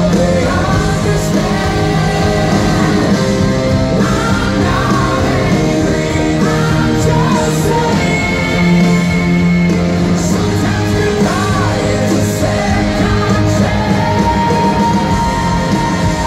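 Rock band playing live in an arena, with guitars, drums and singing, and a long held note near the end.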